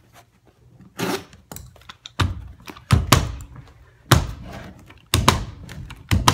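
Carpet knee kicker being bumped with the knee: a series of heavy thumps, roughly one a second, as the carpet is stretched toward the tack strip.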